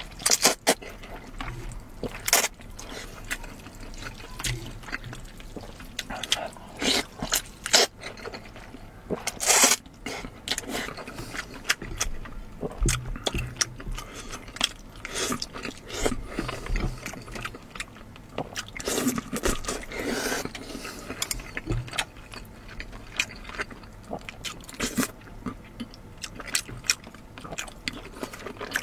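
Close-miked eating sounds: wet chewing and mouth smacks, with irregular sharp clicks throughout.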